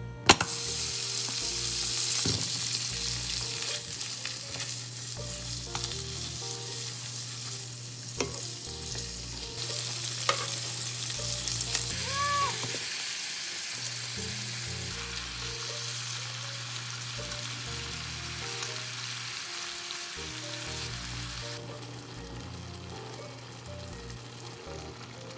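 Food sizzling in butter in a frying pan, starting suddenly right at the start, with a few clacks of a wooden spatula stirring. The sizzle thins near the end as the tomato, cabbage and broccoli give off their juices.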